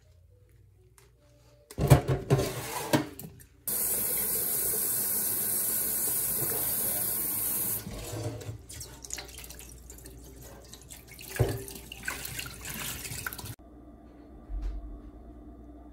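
Kitchen tap running into a stainless steel bowl in a sink, a steady rush of water that starts and stops abruptly after about four seconds. Before it come splashes of hands working in the water, and after it the water sloshes as octopus is rinsed by hand, with one sharp knock against the bowl partway through.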